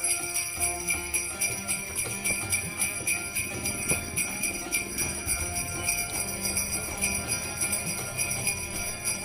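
Indian-style background music with a steady jingling bell rhythm over sustained tones.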